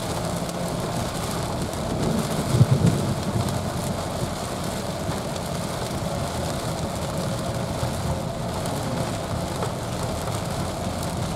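Heavy rain drumming on a moving car, with steady tyre and road noise heard from inside the cabin. There is a brief low thump about two and a half seconds in.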